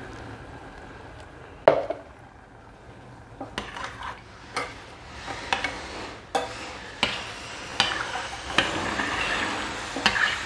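A metal spoon clinking and scraping against a stainless steel pot as rice is stirred in vegetable broth, with one sharp clank about two seconds in and then clinks about once a second.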